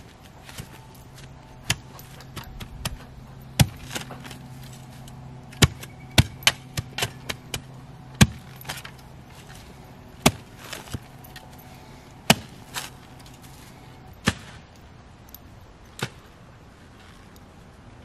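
Manual clamshell post hole digger driven into the ground, a sharp chopping strike with each jab, about twenty strikes at irregular intervals, clustered fastest in the middle.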